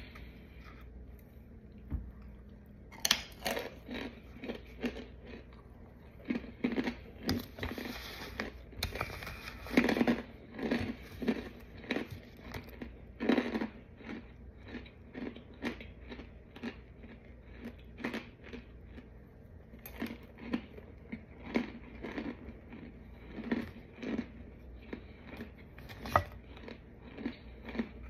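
A person biting and chewing crunchy chunks of packed white powder, an irregular run of sharp crunches with softer chewing in between. Fingers handling the chalky chunks on a powder-covered plate can also be heard.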